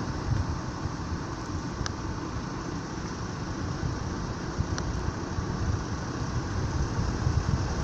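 Steady low rumble and hiss of a motor vehicle running, with two faint ticks.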